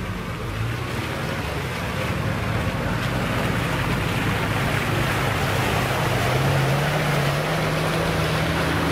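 Off-road trial buggy's engine running and growing louder as it approaches. Its note rises partway through as it is given more throttle.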